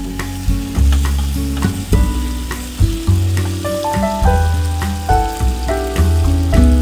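Background music with a bass line and a melody of changing notes, over tomatoes and peppers sizzling in a cast-iron pan and a wooden spoon scraping as it stirs them.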